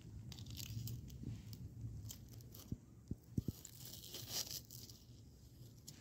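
Fresh snow crunching and crackling as it is disturbed, with a few soft thumps about three seconds in.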